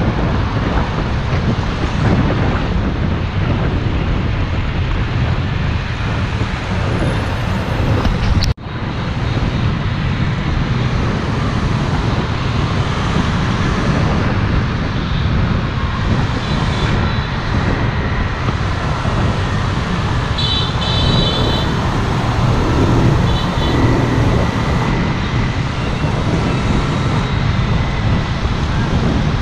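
Steady, loud rushing noise of travelling with traffic, wind and road or engine noise blended together. It cuts out for an instant about eight and a half seconds in, and a few short high tones sound around twenty seconds in.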